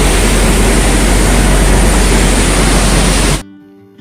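Paddy thresher running: a loud, steady rushing noise over a low hum, cutting off abruptly about three and a half seconds in.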